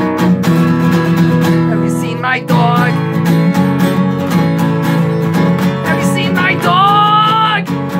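Acoustic guitar strummed in a fast, steady rhythm as accompaniment to an acoustic punk song. Near the end a man's voice comes in with a held, wavering sung note.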